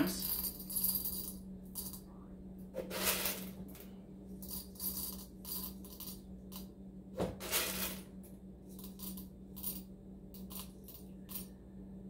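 Whole roasted coffee beans dropped into a stainless steel dosing cup on a scale, clicking and rattling against the metal a few at a time, with two fuller pours about three and seven and a half seconds in.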